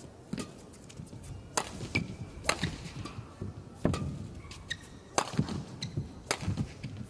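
Badminton rally: a feather shuttlecock struck back and forth by rackets, six sharp hits about a second apart, with short squeaks of court shoes between them.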